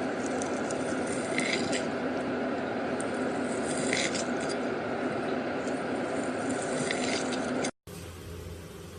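Slime being squished and worked by hand: a steady wet, sticky noise with scattered crackling pops. Near the end it cuts abruptly to a quieter recording.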